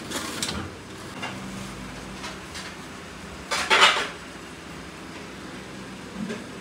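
Kitchen sounds: a metal drawer slid shut at the start, then dishes clinking and clattering, with the loudest clatter about three and a half seconds in.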